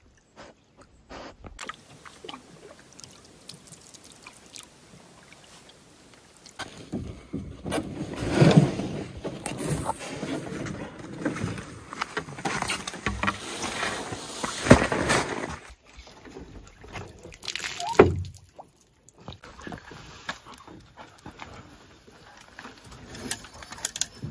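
Canoe being loaded and handled at the water's edge: packs and gear knocking against the hull, with water sloshing. It starts with faint clicks, gets busier partway through, and has a few sharp loud knocks, the loudest about halfway and another a few seconds later.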